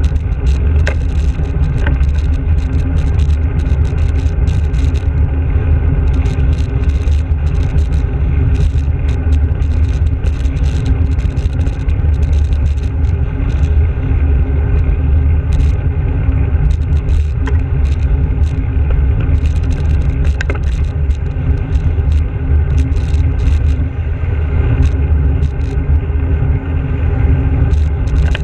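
Steady low rumble of wind and road noise on a bicycle-mounted GoPro Hero's microphone while riding, with cars passing close alongside and scattered small clicks.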